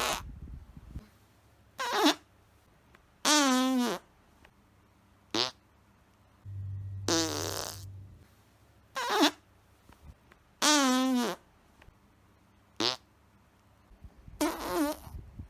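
A series of about nine separate fart sound effects, some short and some drawn out, with brief quiet gaps between them. Several have a wavering pitch that drops toward the end.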